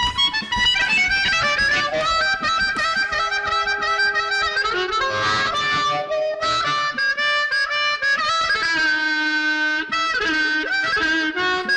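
Instrumental music: a harmonica plays a melodic line of changing notes, holding one longer note about nine seconds in.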